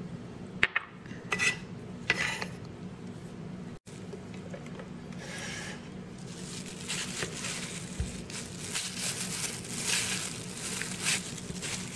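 A few sharp clinks of a porcelain bowl and a steel cleaver on a wooden chopping board. Past the middle comes continuous crinkly rustling as a hand in a plastic food glove grips and rubs a whole salted fish.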